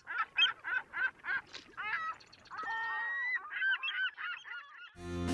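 A bird calling repeatedly: a run of short, evenly spaced calls, about three or four a second, followed by a few longer, slurred calls. Music comes in just before the end.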